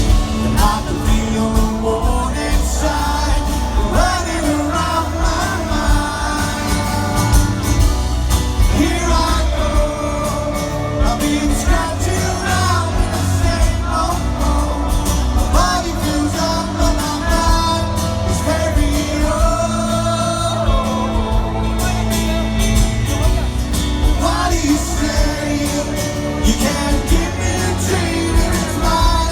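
Live rock band playing a song with a sung lead vocal over a steady bass.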